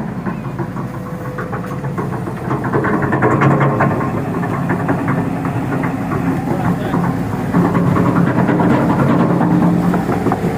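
Excavator's diesel engine running with the throttle up, getting louder about two and a half seconds in and again about seven and a half seconds in.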